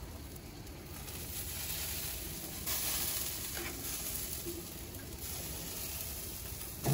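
Steady sizzling hiss from the open stick-burner smoker as hot fat on the pork butt cooks in the hickory heat, growing a little louder in the middle. A short knock comes at the very end.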